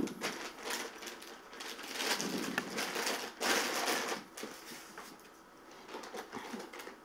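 Plastic piping bag rustling and crinkling as it is opened out and handled, in bursts, the loudest about two and three and a half seconds in.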